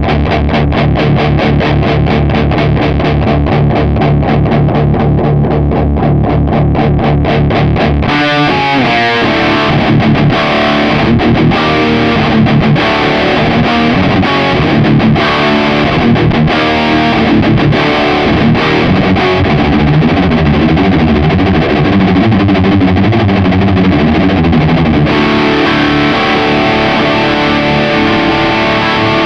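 High-gain distorted electric guitar through a Mesa Boogie Mark III-style preamp emulation. It plays fast, even chugging on a low note for about eight seconds, then switches to a busier riff with moving notes.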